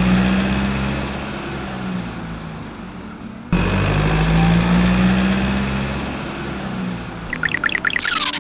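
Truck engine sound effect running steadily. It cuts off abruptly about three and a half seconds in and starts again in the same way. Near the end there is a warbling cartoon boing and a steeply falling whistle.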